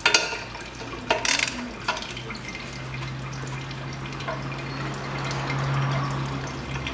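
Socket ratchet and open-end wrench loosening an exhaust downpipe flange bolt: a few sharp metal clicks and a short scrape in the first second and a half. From about two seconds in, a steady low machine hum takes over.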